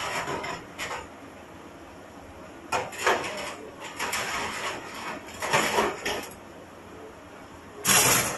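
A knife cutting and scraping into a large swordfish on a steel counter, in irregular rasping strokes, the loudest one near the end.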